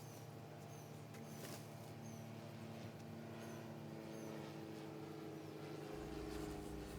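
A steady low mechanical hum of several held tones, with a deeper rumble joining about six seconds in, and faint short high chirps recurring over it.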